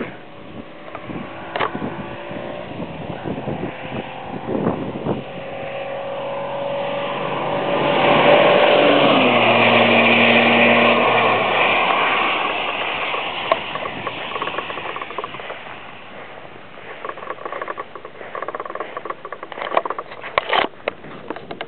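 Jaguar X-Type 2.5 V6 with an aftermarket Mina exhaust coming up the straight flat out and passing at about 105 mph. The exhaust note grows, is loudest from about eight to twelve seconds in, drops in pitch as the car goes by, then fades away. Wind buffets the microphone near the end.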